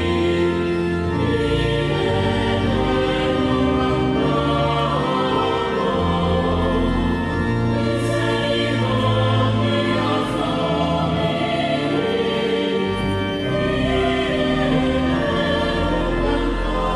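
Church choir singing with organ accompaniment: sustained chords over a deep bass line, the harmony changing every second or two.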